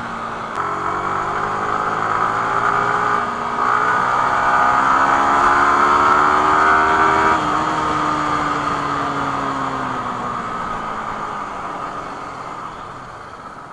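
Yamaha R15 V3's 155 cc single-cylinder engine pulling in third gear, its note rising steadily as the bike accelerates. About seven seconds in the throttle is closed sharply, and the note falls away and fades as the bike slows.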